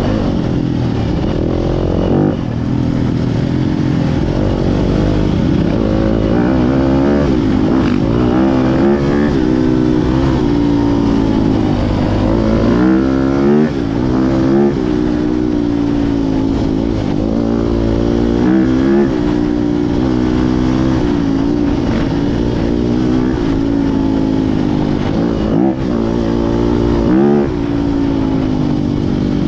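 Enduro dirt bike engine heard from on the bike while riding a trail, its pitch rising and falling over and over as the throttle opens and closes, with a few brief drops in the engine note.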